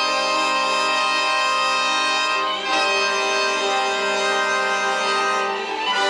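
Orchestral ballet music with strings, playing long held chords that change about two and a half seconds in and again near the end.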